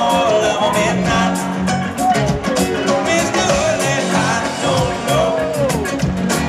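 Live band playing through a stadium PA: a sung melody over drums, electric and acoustic guitars and bass, with a steady beat.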